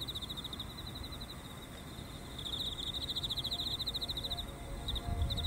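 Insects trilling in a high, rapid, even pulse, stronger from about two and a half seconds in; soft ambient music fades in near the end.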